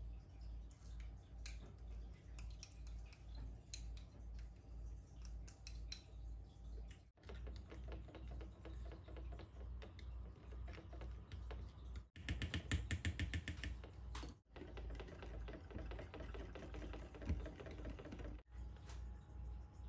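A spoon and then a wire whisk clicking and tapping against a small glass bowl while stirring a thick sesame-mayonnaise dressing, with several brief cut-offs. The quickest, loudest run of clicks comes a little past the middle.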